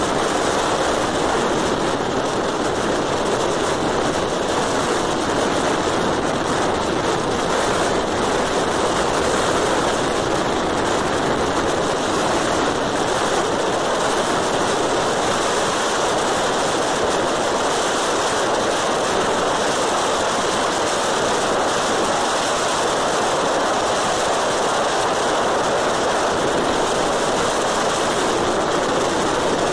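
Steady rush of wind and road noise on the microphone of a camera riding along a road at speed, with no distinct engine note.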